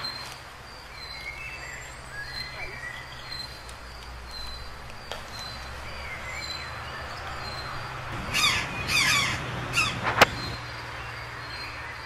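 Forest birds calling, over a short high chirp that repeats about twice a second. About eight seconds in comes a louder rasping passage, then a single sharp knock.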